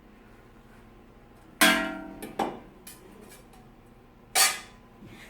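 Sharp metallic clanks on spot-welded steel sheet: two loud strikes with a smaller one between, the first ringing briefly. The sheets are being broken apart to free the spot-weld nugget.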